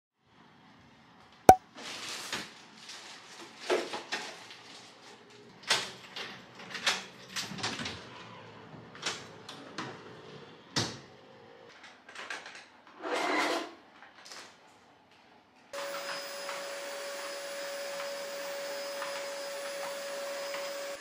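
Kitchen handling sounds: a sharp click, then scattered knocks, clinks and rustles with a short noisy burst. About 16 s in, a steady electric appliance hum with a constant tone starts up.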